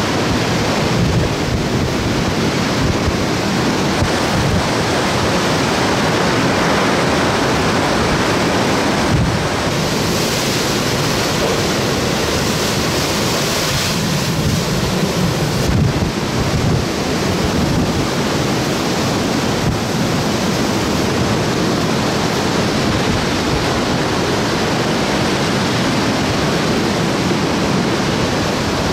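Category 4 hurricane wind and heavy, wind-driven rain, a loud, steady rush of noise with the wind buffeting the microphone.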